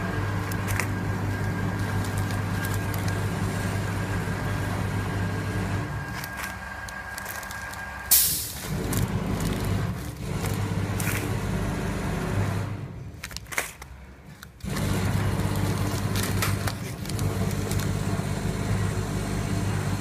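Steady hum of packing machinery running, with a thin high whine that stops about eight seconds in. The hum fades out twice, briefly. There is one sharp knock about eight seconds in and a few light clicks and rustles of plastic bags being handled.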